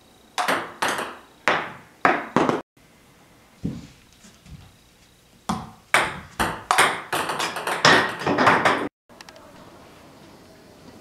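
Table tennis ball ticking sharply off paddles and the table: about five separate clicks, a single duller knock, then a quicker run of clicks lasting about three seconds. Only faint room noise remains for the last two seconds.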